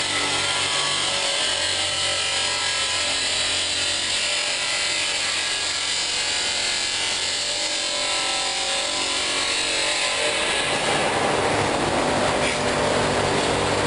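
Workshop machinery running steadily: a continuous hissing mechanical noise with a few faint held tones, growing a little noisier near the end.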